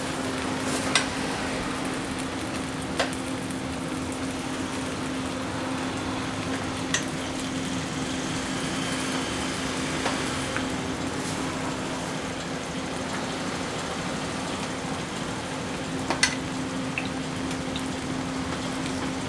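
A metal spoon clinks a few times against a stainless steel bowl as meat filling is scooped out, over a steady hiss and a low steady hum.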